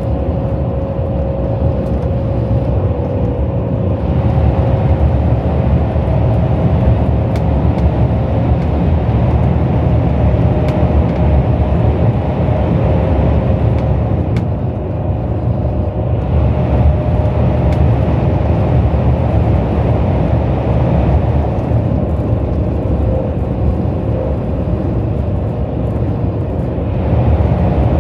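KTX high-speed train running at speed, heard from inside the passenger cabin: a deep, steady rumble with a faint steady whine and a few light ticks.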